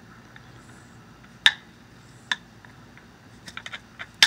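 Copper-tipped billet striking the edge of a stone-ground flint blank in percussion flaking: sharp clicks, the loudest about a second and a half in, another a little after two seconds, then a few light taps and a hard strike near the end that drives off a big flake.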